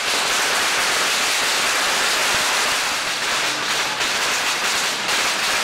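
Fireworks going off: the continuous hissing rush of a ground spark fountain mixed with the crackle of firecrackers, densest in the first few seconds.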